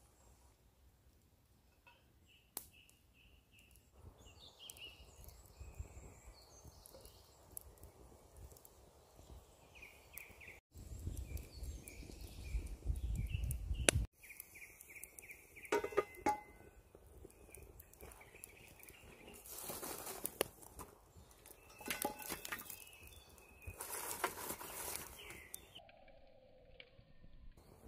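Small forest birds chirping in quick repeated series, over the crackle of a wood campfire. A louder low rumble comes through the middle, and near the end there are short bursts of knocking and scraping as cast-iron cookware and hot coals are handled.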